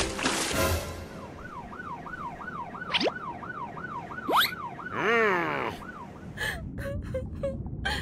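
Cartoon police siren sound effect: a fast warbling tone that rises and falls about three times a second for several seconds, with two quick rising swoosh effects and a falling cry near the middle.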